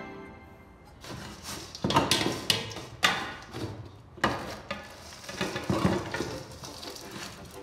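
Metal pan scraping and knocking against a stainless steel bowl as disturbed soil and gravel are scooped out, then the bowl tipped and soil sliding and pouring into a metal pan, with several sharp clatters of metal on metal.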